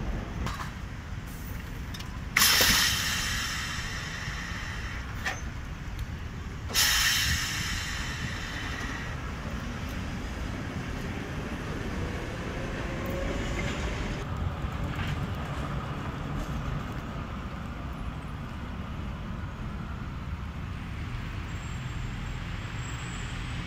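Articulated electric tram moving off and running away along the street over a steady rumble. Two sudden, loud hisses of compressed air about four seconds apart come from its air system. Later a faint whine rises in pitch as it speeds up.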